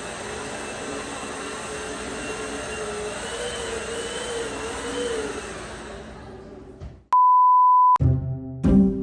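Steady noisy hum with a faint wavering tone fades out over about six seconds. Then a one-second electronic beep at a single pitch, followed by plucked-string music starting near the end.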